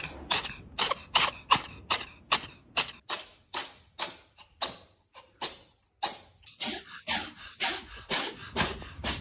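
A cat sneezing over and over in a rapid fit: short, sharp bursts about two or three a second, slowing a little past halfway with a brief pause, then coming quickly again.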